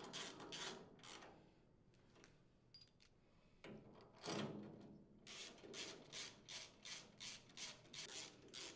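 Socket ratchet turning the cylinder head mounting screws of a small engine, its pawl clicking on each back-swing. The strokes come in quick succession, a few near the start and then about three a second through the second half.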